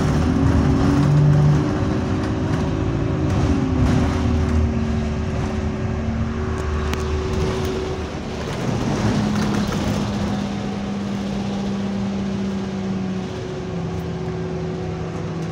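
Interior noise of an Alexander Dennis Enviro200 diesel bus with an Allison automatic gearbox under way: engine drone and road rumble, with a whining tone that holds steady, then drops in pitch a few seconds before the end. The uploader says the bus is running in limp mode with no kickdown.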